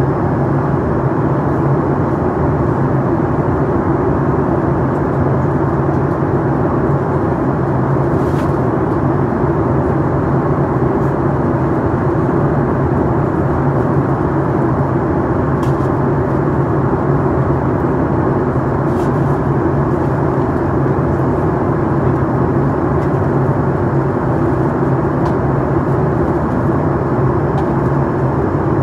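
Steady cabin drone inside a Boeing 737 MAX 8 during descent: its CFM LEAP-1B turbofan engines and the rush of air along the fuselage, heard from a window seat.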